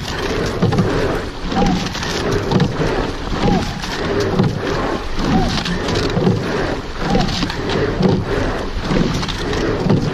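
Sculling boat rowed hard: oar blades splashing in and out of the water and oarlocks clunking in a steady rhythm just under once a second, over rushing water along the hull, with short squeaks in time with the strokes.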